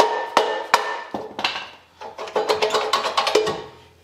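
Metal parts of a Subaru's rear suspension and subframe clanking and ringing as the subframe is worked loose. There are a few sharp knocks in the first second, then a quicker run of ringing clinks about two to three seconds in.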